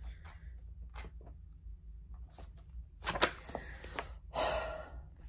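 Pages of a hardcover cookbook being turned and the book handled, with a louder slap and rustle of paper about three seconds in and another rustle about a second later.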